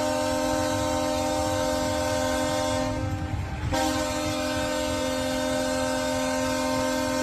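Ice hockey arena goal horn sounding two long, steady blasts, a chord of several held tones. The first blast cuts off about three seconds in, and the second starts under a second later.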